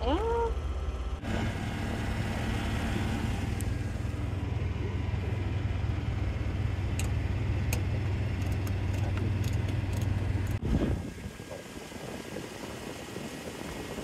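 Steady low hum of a rooftop HVAC unit's machinery running, with a few light clicks from panel and filter handling. About ten and a half seconds in there is a short knock, and the hum drops to a fainter, rougher hum.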